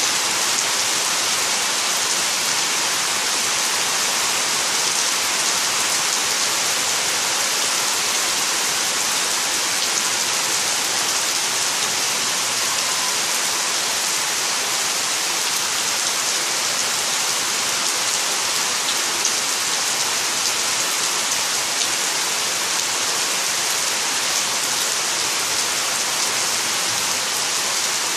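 Steady heavy summer rain falling on trees, leaves and lawn: an even, unbroken hiss.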